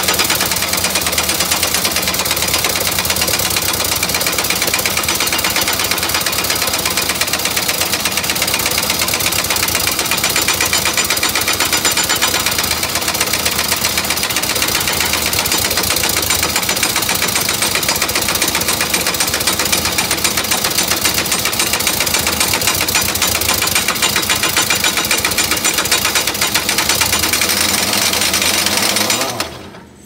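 Pneumatic air tool hammering rapidly and without a break on a semi truck's driveline yoke, then cutting off abruptly near the end.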